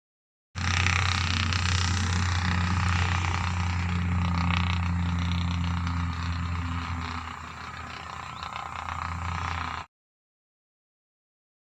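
An engine running steadily, a loud low hum with a noisy wash over it, easing slightly after about seven seconds. It cuts in abruptly about half a second in and cuts off just as abruptly near the end.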